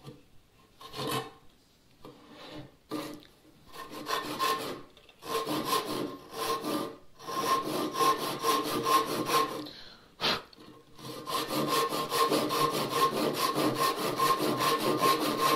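Ryoba Japanese pull saw cross-cutting a pine bench leg, stroke after stroke. The strokes are light and spaced at first, grow steady and louder from about four seconds in, pause briefly with a single click near ten seconds, then pick up again quick and even.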